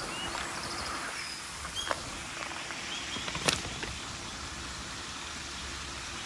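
Outdoor ambience: a steady hiss with a few short, faint chirps and two sharp clicks, one about two seconds in and one past the middle.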